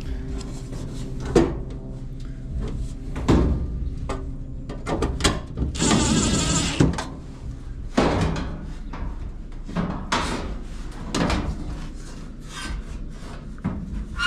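Knocks, clicks and scraping from the metal panels and parts of a torn-down clothes dryer being handled, with one longer scrape about six seconds in.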